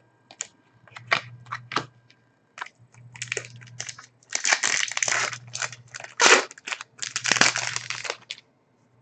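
A trading card pack wrapper being torn open and crinkled: a run of sharp crackles and snaps, with two longer bursts of crumpling in the second half and a single sharp snap between them.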